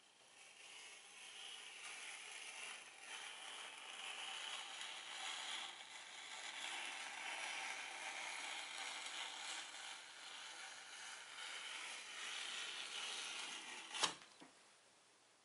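A stick of white chalk drawn slowly across a chalkboard in one long stroke, a steady scratchy scraping. It ends in a single sharp click near the end as the chalk reaches the edge of the board.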